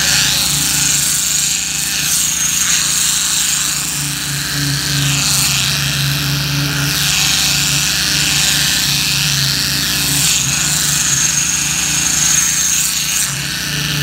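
Concrete poker vibrator running steadily, its drive unit humming while the needle on its flexible shaft buzzes in fresh concrete, with a high whine that comes and goes.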